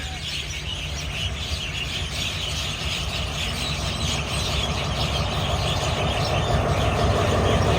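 Passenger train running into the station, a steady rumble that grows gradually louder.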